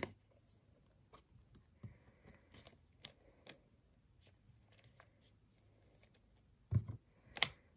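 Faint rustling and small clicks of trading cards and plastic card sleeves being handled, with two louder knocks near the end.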